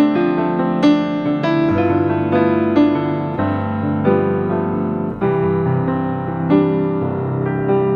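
Background piano music: a steady, gentle melody of sustained notes over chords.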